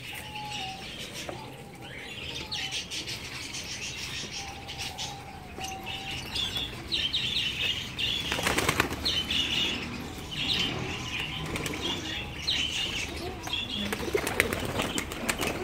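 Pigeons' wings flapping again and again as the birds jostle and balance on a person's hands, with a loud bout of flapping about halfway through.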